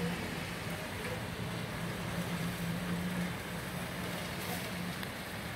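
Steady wash of rain and runoff water, with a low motor hum coming and going underneath.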